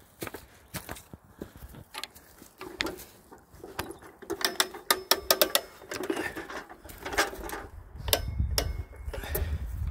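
Hand-crank ratchet winch being cranked under load to haul a big log, its pawl clicking in irregular runs, fastest around the middle. A low rumble comes in near the end.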